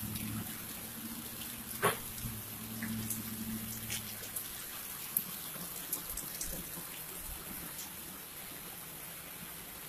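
Heavy rain falling steadily, with scattered drops ticking close by. A faint low hum fades out about four seconds in, and there is a single sharp knock about two seconds in.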